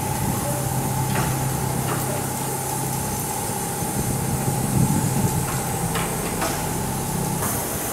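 Class 52 steam locomotive standing at rest, steam hissing from around its cylinders over a steady hum from its running machinery, with a few faint ticks.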